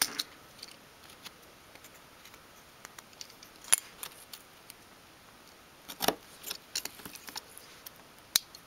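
Craft knife blade nicking small pieces out of a thin sheet of wood on a cutting mat: scattered short, sharp clicks and snips, the loudest about four and six seconds in.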